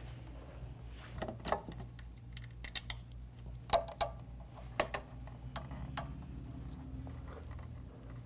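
Light, irregular clicks and taps of mounting bolts and a hand tool as the control box hardware is threaded onto the scooter frame, about a dozen in all, over a faint steady hum.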